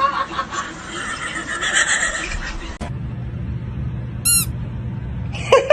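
A cat meowing: a short, high-pitched cry a little past the middle, then louder, wavering meows near the end over a low hum.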